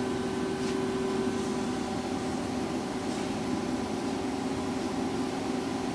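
Lucas 542B-84 CNC horizontal boring mill running with a steady hum made of several held tones over a hiss; the highest tone fades out about a second and a half in.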